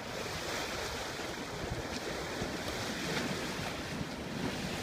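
Steady rush of water along the hull of a Hinckley 49 sailing yacht under sail, with light wind on the microphone.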